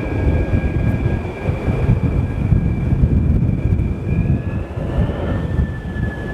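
Jet airliner engines running: a heavy, uneven low rumble with a steady high turbine whine on top, the whine rising slightly in pitch about four to five seconds in.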